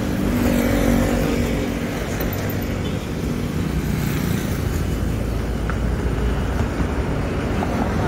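A motor vehicle's engine running, a steady low hum for the first few seconds over a constant low rumble of road noise.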